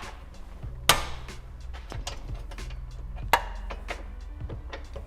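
Hand tools working the adjusting nut on a car's rear suspension arm: two sharp knocks about two and a half seconds apart, with lighter clicks between them, over a steady low hum.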